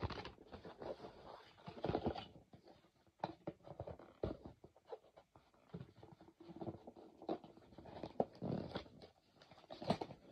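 Faint, irregular handling noises: scattered taps, scrapes and rustles, as of something being handled and opened by hand.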